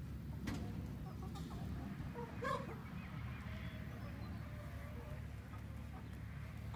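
Chickens clucking, with one louder short call about two and a half seconds in.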